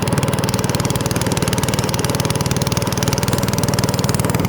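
A small engine running steadily, its firing a fast, even putter.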